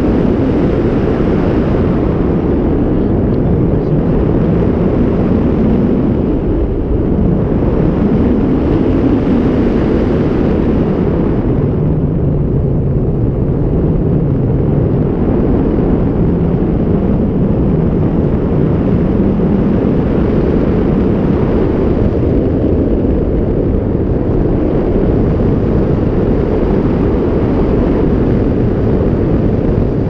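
Loud, steady wind rush buffeting the camera microphone in the airflow of a tandem paraglider in flight.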